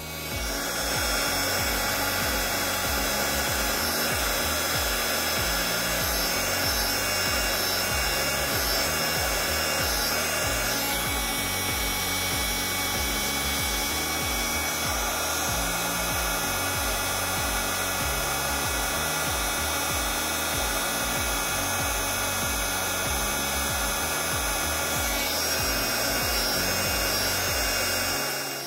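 Hot air gun blowing steadily, heating a failed LED on a TV backlight strip to desolder it, with background music underneath.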